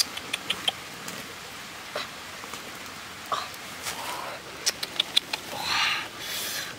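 Large leaves rustling as they are handled and laid out, with scattered light sharp clicks and taps, a few just after the start and a cluster about two thirds in.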